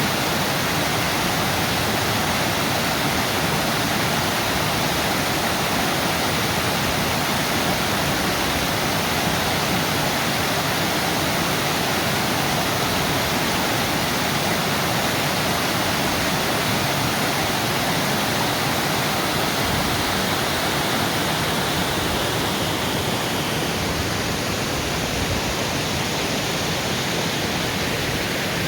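Waterfall rushing steadily, a constant loud hiss of falling water. Near the end the higher part of the hiss softens slightly.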